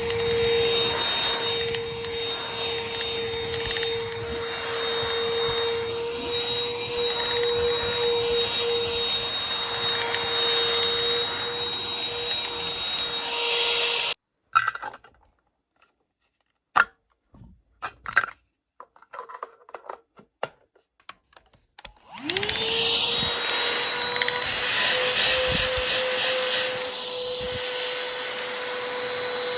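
Vacuum cleaner running with a steady whine, switched off about halfway through. A few light knocks and clicks follow in the pause, then it is switched on again and its motor spins up to speed and runs on.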